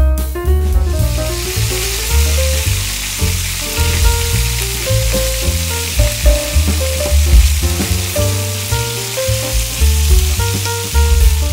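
Fish sizzling as it deep-fries in hot oil in a frying pan; the sizzle builds about a second in and fades near the end. Background music plays underneath.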